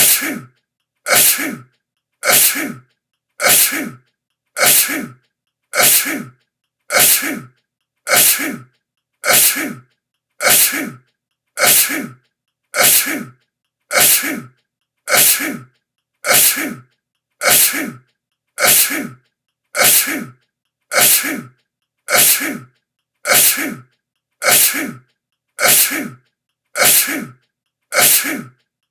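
A person sneezing over and over: a sharp sneeze about every second and a quarter, each one much like the last.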